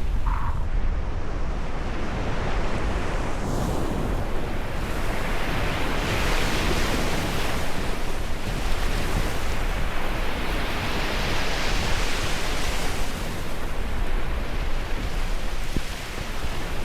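Ocean surf: waves washing in with a continuous rushing hiss that swells and eases, over a low rumble of wind on the microphone.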